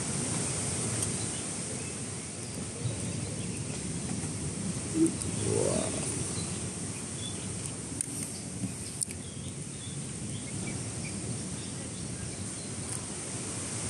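Steady outdoor rush of wind and surf, with scattered faint bird chirps and a short rising call about five to six seconds in.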